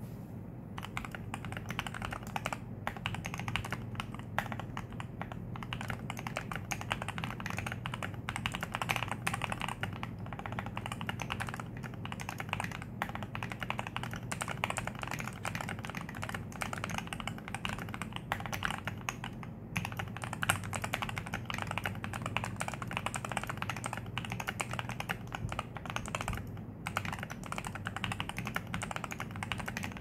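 Continuous fast typing on a modded Jargo TKL mechanical keyboard with hand-lubed Outemu Milk Peach switches, double-shot PBT keycaps, lubed stabilizers and foam and tape mods: a dense, steady stream of keystrokes, with a couple of brief pauses.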